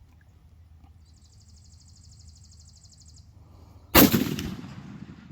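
A single long-range rifle shot about four seconds in: a sharp muzzle blast followed by a rumbling echo that fades over about a second.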